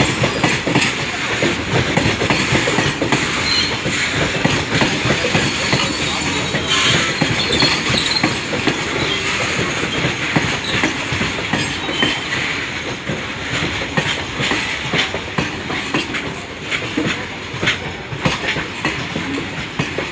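Steel wheels of a goods train's wagons clattering rhythmically over rail joints as the train rolls through, with brief wheel squeal now and then.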